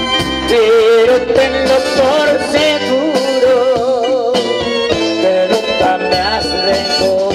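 A live tropical band playing a song: congas, bass guitar and drum kit keep a steady beat under a long wavering melody line held for several seconds.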